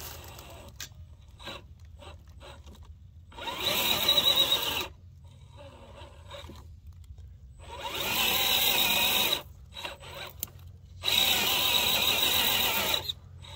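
Redcat Gen8 RC crawler's electric motor and gearbox whining in three short bursts of throttle as the truck creeps up a rock, with quieter gaps between.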